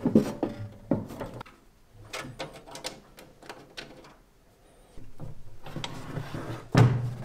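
Handling noise from a 3D printer's metal base and its bottom cover panel being fitted and moved on a wooden bench. Several separate clicks and knocks come in the first few seconds, then a stretch of rubbing, and a loud knock near the end.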